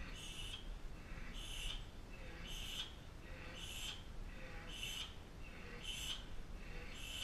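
Fast, heavy breathing of a Muay Thai fighter, a hissing breath in and out repeating about once a second.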